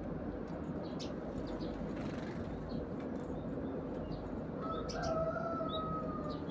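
Eurasian tree sparrows chirping in short, scattered calls over a steady low rumble. About five seconds in, a drawn-out tone sounds for about a second and a half.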